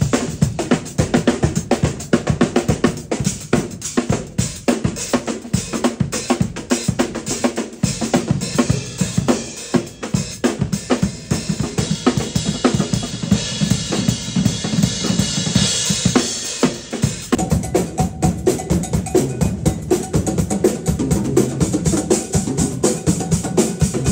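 Acoustic drum kit shedding: fast, dense runs of snare, tom and bass drum strokes with rimshots and cymbal hits. About halfway through the cymbals ring heavily for a few seconds, and about two-thirds of the way in the sound changes abruptly while the fast drumming goes on.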